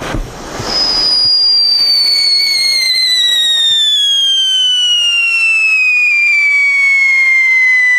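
Scream 100 XXL whistling firecracker going off on the ground. After a short fuse fizz, a loud whistle starts under a second in and slowly falls in pitch, joined by a lower second tone about two seconds in.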